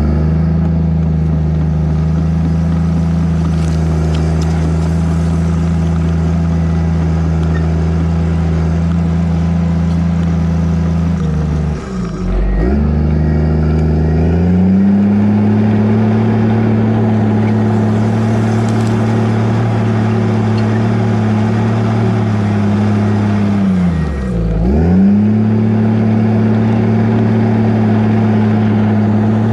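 Diesel engine of a tracked earthmoving machine running steadily under load while backfilling. Twice, about 12 and 24 seconds in, the engine lugs down sharply and then recovers.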